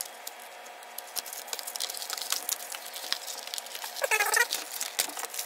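Cardboard and plastic doll packaging rustling and clicking in quick irregular ticks as hands work a doll free of its box insert, with a brief pitched squeak about four seconds in.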